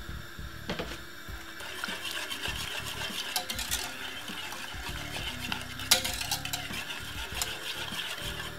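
A wire whisk stirring thick white sauce in a metal milk pan, its wires scraping and clicking rapidly against the pan, starting about two seconds in, with a few sharper clinks along the way.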